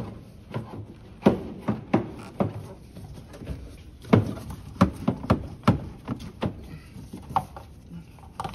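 Plastic and rubber air intake duct of a Chevy pickup being pushed and twisted by hand onto the throttle body: a string of irregular knocks and thuds.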